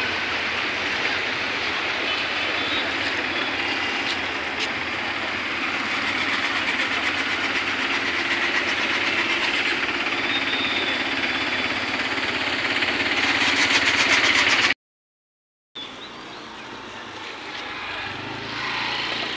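Steady rushing of flowing floodwater. The sound cuts out for about a second about three-quarters of the way through and comes back quieter.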